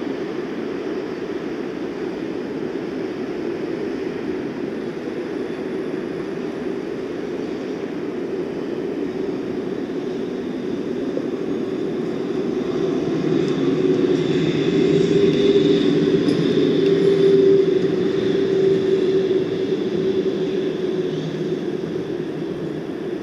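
Steady hum of road traffic, with a Melbourne D1-class tram passing along the road. It grows louder about halfway through as the tram goes by, with a steady whine riding over the traffic noise, then fades toward the end.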